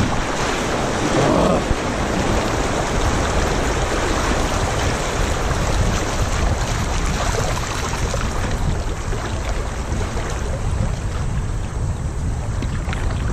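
River water rushing over a shallow riffle around a kayak's bow, a steady loud hiss with a deep rumble beneath it, heard up close from a camera at water level.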